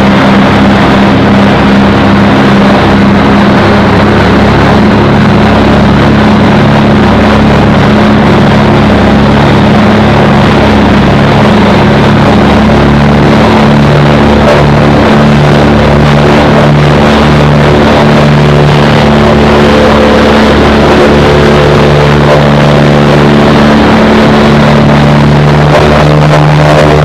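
The twin Pratt & Whitney R-1830 Twin Wasp radial engines of a Consolidated PBY-5A Catalina, heard inside the cabin in flight. They run at cruise power as a loud, steady drone whose low tones slowly swell and fade.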